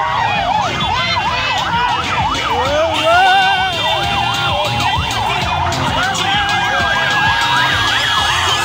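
Several police sirens of a convoy sounding at once, their pitches sweeping quickly up and down and overlapping, over the low run of engines. A steady high tone joins in after about six seconds.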